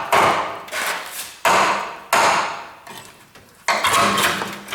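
A two-pound hammer striking a chisel against the rusted steel of a car chassis: about five hard metal-on-metal blows, unevenly spaced, each ringing briefly.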